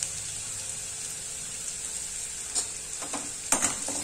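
Chopped onion sizzling steadily in hot oil in a stainless steel kadhai, with a steel spoon scraping and stirring against the pan from about two and a half seconds in.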